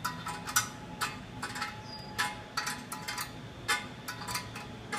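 Clicking of a wrench tightening the nuts on the toilet bowl's floor bolts, a short metallic click about every half second.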